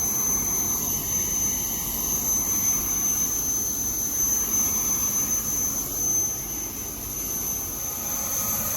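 Aircraft turbine engine running steadily: a continuous rushing noise with a constant high-pitched whine.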